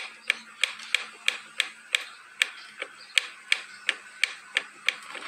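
Motorcycle clutch basket rocked back and forth by hand, knocking in a steady run of sharp clicks about three a second. The basket has too much play because its internal rubber dampers are worn.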